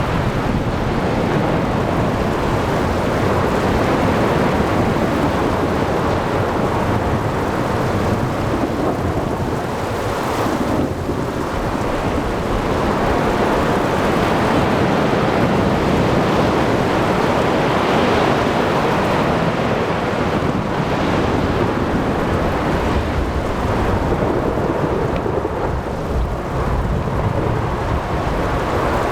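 Thunderstorm at sea: a steady, dense rumble of thunder with heavy rain, mixed with wind and waves. The level swells and eases gently, with no sharp single crack.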